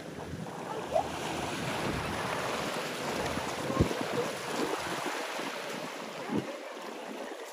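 Wind on the microphone over small waves lapping at the shore: a steady rushing noise that swells in the middle and eases toward the end, with a few faint ticks.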